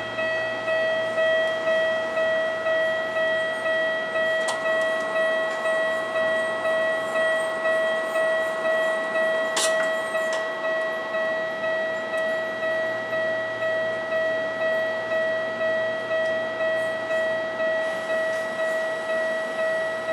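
A Japanese railway level-crossing warning bell rings steadily at about two strokes a second, each stroke a ringing tone that fades before the next. Two sharp clicks come through, about four and a half and nine and a half seconds in.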